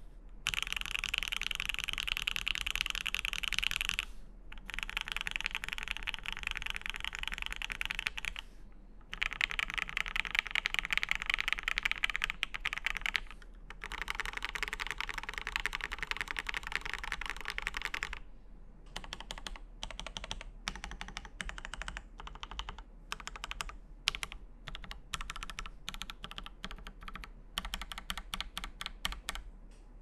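Typing on a mechanical keyboard: a clear polycarbonate Obliterated75 with an FR4 plate, lubed Alpaca linear switches with TX films, and JTK Vostok-1 keycaps. Fast continuous typing comes in runs of about four seconds with brief pauses. About two-thirds of the way through it changes to slower separate keystrokes and short clusters, which stop just before the end.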